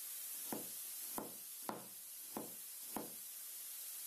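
Kitchen knife slicing a carrot into rounds on a plastic cutting board: five light knocks of the blade against the board, about one every 0.6 s, stopping about a second before the end.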